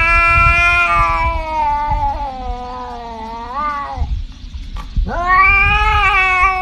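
Domestic cat yowling in long drawn-out calls. The first is held for about four seconds, its pitch sagging and wobbling near the end. After a pause of about a second, a second call rises sharply and holds.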